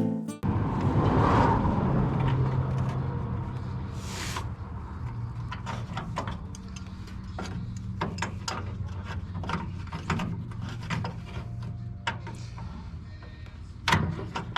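Workshop handling noises: irregular sharp clicks and knocks of tools and parts over a low steady hum, with a short hiss about four seconds in and a louder knock near the end.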